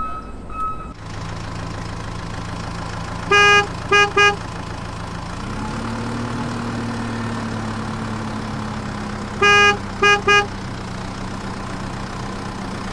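Truck engine sound effect running steadily, rising a little in pitch about five seconds in, with a vehicle horn honked one long and two short, twice.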